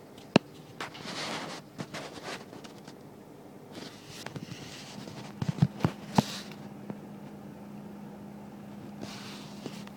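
Scattered sharp clicks and brief rustling, with a faint steady low hum coming in about halfway.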